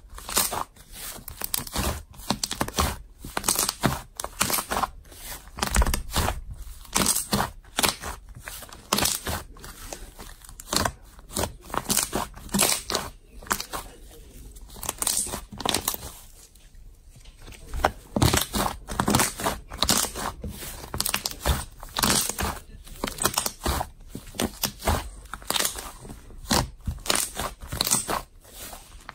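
Slime being squeezed and stretched by hand, giving a rapid, irregular run of sticky clicks and pops, with a quieter stretch about halfway through.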